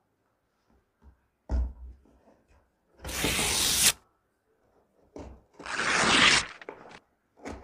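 Packing tape on a cardboard parcel being slit open along the seam: two rasping tearing strokes about a second long, the first about three seconds in, after a light thump on the box about a second and a half in.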